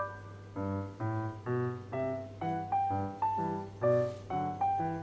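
Background piano music: an evenly paced melody over low bass notes, about two to three notes a second.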